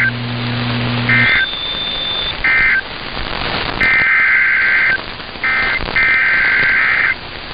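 Emergency Alert System SAME data bursts, shrill two-tone digital screeches over a hissing broadcast feed. First come three short end-of-message bursts, about a second and a half apart, closing the flash flood warning. About a second later come two longer header bursts that start the next alert.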